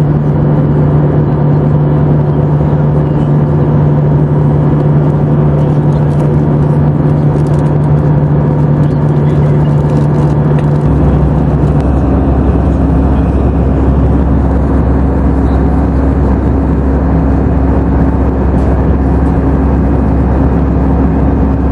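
Inside the cabin of an Airbus A320-family jet airliner in flight: the steady drone of its turbofan engines and rushing airflow. The low engine hum shifts down in pitch about eleven seconds in.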